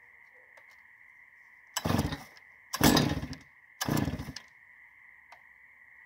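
Chainsaw on an Alaskan sawmill being pull-started: three short bursts about a second apart, each rising sharply and dying away after half a second, without the engine staying running. A faint steady high tone carries on underneath.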